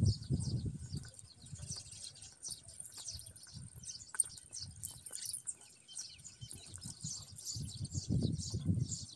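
Outdoor rural ambience: many small birds chirping over a steady high insect drone, with a low rumble of wind or handling on the microphone at the start and again near the end.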